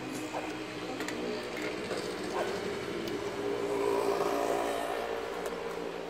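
Engine hum of a passing motor vehicle, growing louder to a peak about four seconds in and then fading.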